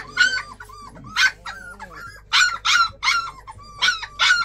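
Young puppies, about three to four weeks old, giving a string of about eight short, high-pitched yips and squeals, several in quick pairs.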